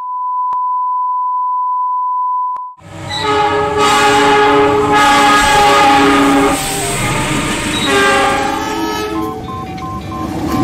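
A steady, high test-tone beep for about two and a half seconds, then a diesel locomotive's horn blowing long, loud chords that change pitch a few times, over the noise of a passing train.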